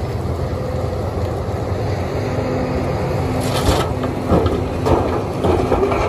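Large Sumitomo crawler excavator's diesel engine running steadily under working load, with a faint steady hum, and a few knocks and clatters of rock from about three and a half seconds in.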